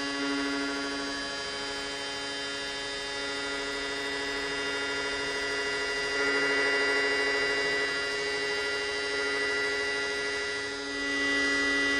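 Electronic buzzing drone from a live noise set of modular synthesiser and sonified lights: a dense stack of steady tones. It grows louder about six seconds in and again near the end.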